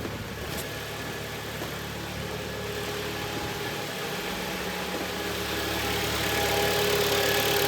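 Kia Optima's G4KD 2.0 four-cylinder petrol engine idling, freshly rebuilt with new pistons, running evenly and quietly with no knocking. It grows gradually louder.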